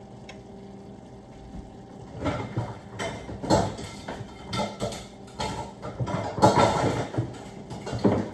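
Kitchen cookware clattering and knocking as a strainer and pans are got out and handled, in an irregular run of knocks that is busiest about six to seven seconds in, over a steady low hum.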